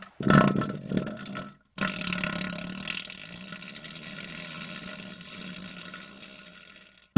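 A short noisy gush, then a long watery, gushing noise of about five seconds that slowly fades.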